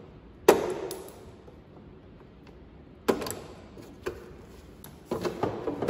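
Plastic push-pin rivets and the plastic fender panel of a Kawasaki Mule SX clicking and knocking as the rivets are pulled out with pliers and the panel is worked loose by hand. There is a sharp click about half a second in, another about three seconds in, and a cluster of rattling knocks near the end.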